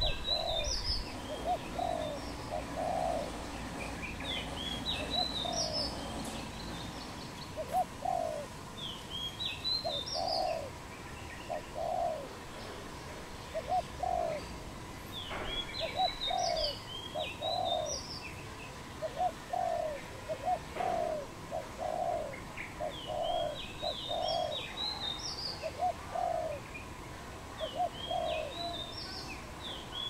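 Spotted doves cooing: short phrases of two to four low coos, repeated every couple of seconds. Another small bird chirps high notes in brief groups between them.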